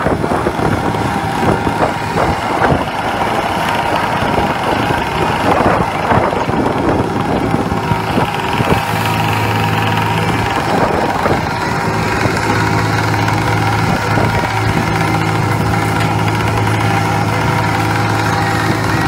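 Crab boat's engine and deck machinery running with a steady low hum that grows stronger about halfway through, over the wash of rough sea. Scattered knocks and clatter of deck work in the first half.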